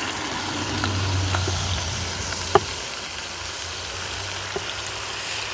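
Barnsley lamb chops sizzling in a frying pan on an induction hob, freshly turned, with a steady low hum under the sizzle. A few light clicks come through, one sharper about two and a half seconds in.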